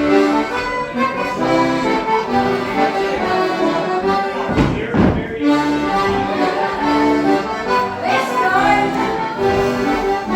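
Accordion playing a traditional Morris dance tune, a steady run of melody notes over a held accompaniment, with a brief rush of noise about halfway through.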